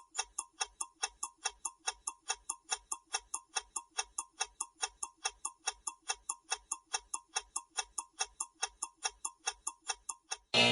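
Countdown-timer clock sound effect: rapid, even ticking, several ticks a second, then a loud ringing tone near the end as the time runs out.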